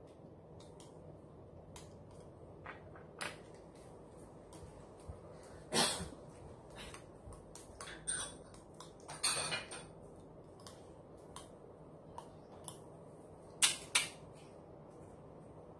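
Teeth being flossed with dental floss: irregular small clicks and snaps of floss and lips at the mouth, with a few louder, longer noisy mouth sounds about six, nine and fourteen seconds in.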